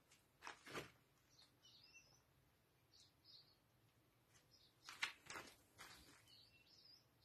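Quiet background with a few faint knocks and scrapes, the loudest about half a second in and about five seconds in, and faint high bird chirps in between.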